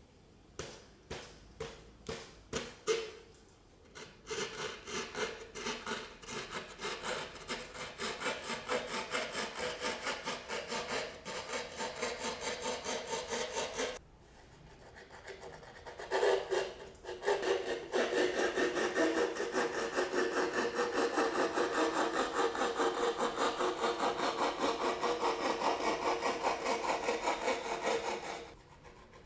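Zetsaw Drywall S-90 Japanese handsaw cutting gypsum drywall with short, rapid back-and-forth strokes. A few separate strokes as the blade bites in give way to a fast, steady rasp, with a brief break partway through; the sawing stops near the end.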